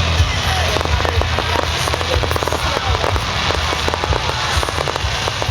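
Aerial fireworks crackling: a dense run of many small rapid pops, with low thuds underneath.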